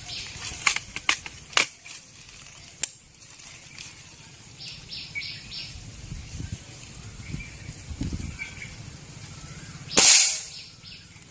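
A few sharp clicks as the air rifle is readied, then about ten seconds in a single loud shot from a Precihole NX200 Athena air rifle firing a flat-head pellet at a steel plate. Short bursts of bird chirping can be heard in the background.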